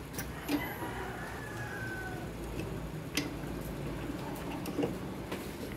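Scattered sharp metallic clicks and taps of a socket wrench being worked on an engine-mount bolt in a car's engine bay, over a low steady hum.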